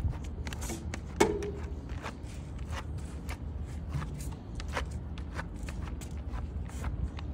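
Notched steel trowel scraping and combing adhesive across a flexible stone veneer sheet, in short repeated strokes with a sharp knock about a second in, over a steady low hum.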